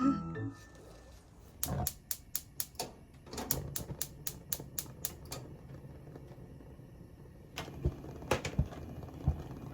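Knife chopping on a cutting board in two quick, even runs of about six strokes a second, followed by a few heavier, irregular knocks near the end.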